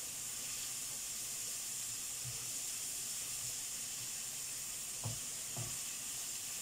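Sliced champignon mushrooms and onion frying in rapeseed oil and butter in a frying pan: a steady sizzle, with two light knocks of the spatula on the pan near the end.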